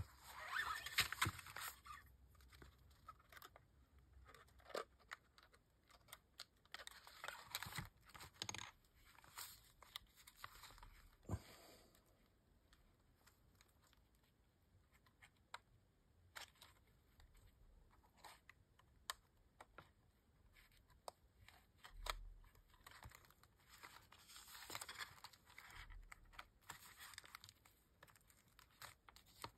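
Faint rustling of stiff kraft paper and scattered small clicks and rubs as plastic binding discs are pushed into the punched edges of a stack of paper envelopes.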